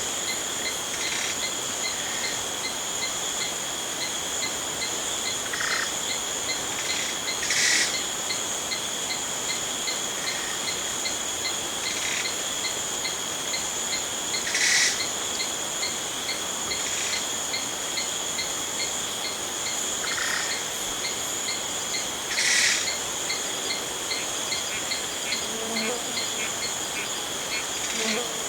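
Jungle insect chorus of crickets and other insects: a continuous high-pitched drone with a fast, even chirping pulse running through it. Short louder calls break in every few seconds.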